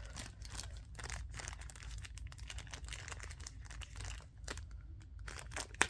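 Packaging crinkling and rustling as a balisong knife is taken out of its box, with many small irregular clicks and one sharper click near the end.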